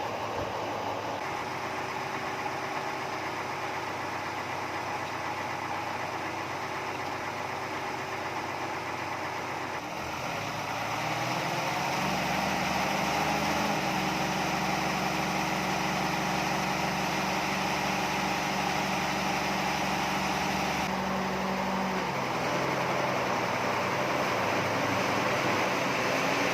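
Engine-driven sawmill machinery running steadily. About ten to twelve seconds in it grows louder, with new steady tones as the machine's pitch and load change, and it eases a little past twenty seconds.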